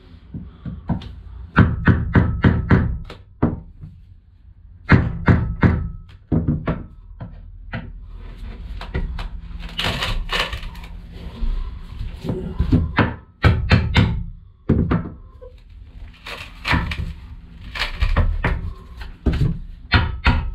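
Hammer striking the end of a long screwdriver used as a chisel, in quick runs of several blows with short pauses, driving it under a glued-down fibreglass sheet to prise it up. Background music runs underneath.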